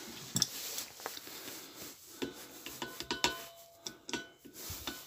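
An adjustable spanner working the brass nut of a propane regulator fitting: scattered small metal clicks and scrapes, with a few brief metallic rings past the middle.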